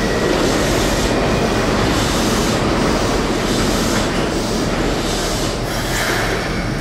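Toei 6300 series train at an underground station platform, giving a steady, loud, noisy rumble.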